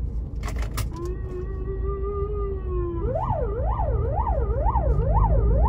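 Police car's electronic siren: a steady held tone for about two seconds, then a fast up-and-down yelp of about two sweeps a second, growing louder, over low traffic rumble.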